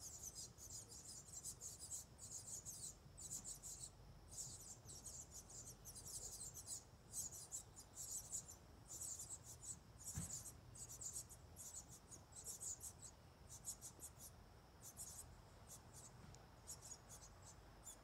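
Faint, high-pitched chirping of baby birds in a nest, in rapid irregular bursts, with a soft knock about ten seconds in.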